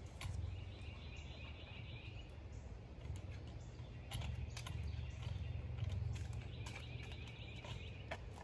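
Outdoor background with a steady low rumble, a high trill that sounds twice, about two seconds each time, near the start and again near the end, and a few light clicks.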